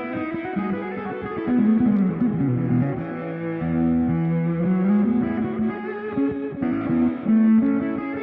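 Electric guitar played through a Ring Boost Ranger 'RMB' booster pedal: a melodic line of single notes that slide up and down.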